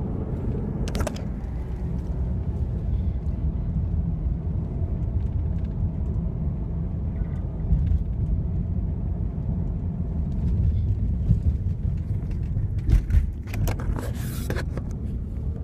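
Steady low rumble of a car driving, heard inside its cabin. Near the end come a few sharp knocks from the phone being handled.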